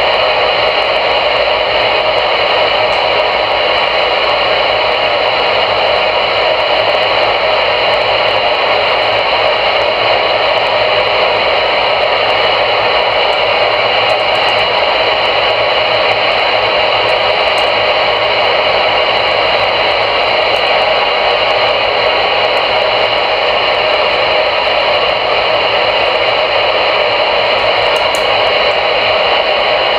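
CRE 8900 CB radio receiver on channel 22 (27.225 MHz) putting out a steady, unbroken static hiss through its speaker. The squelch is open and no voice is coming through.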